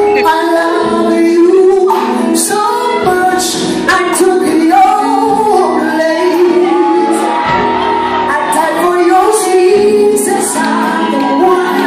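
Live gospel singing: a male lead vocalist sings into a microphone, joined by backing singers, holding long wavering notes.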